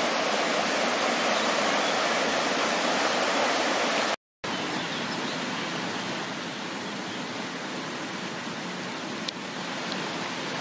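Steady rushing of the Soča river's white-water rapids over rocks. A brief dropout about four seconds in, after which the water sounds a little quieter.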